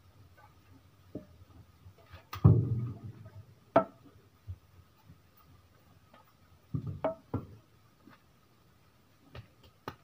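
Scattered thumps and knocks from hands handling a whole pig skewered on a metal roasting spit. There is a heavy thump about two and a half seconds in, a sharp knock near four seconds, a quick cluster of thumps around seven seconds, and two light clicks near the end.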